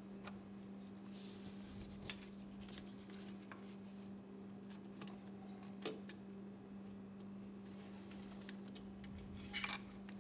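A few sharp metallic clicks and clinks as the transmission suction screen and its plug are threaded back into the tractor's transmission housing by hand, with a small cluster near the end, over a steady low hum.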